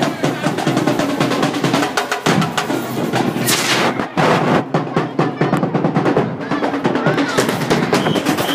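Marching band drumline playing a fast cadence on snare drums and bass drums, with rolls among dense, rapid strokes.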